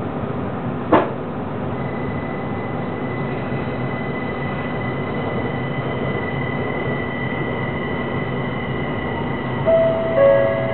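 Linimo maglev train, driven by linear induction motors, running along its guideway as heard from inside the car: a steady running noise with a sharp click about a second in. A steady high whine comes in about two seconds in. Near the end a two-note falling chime sounds, the signal before the on-board next-station announcement.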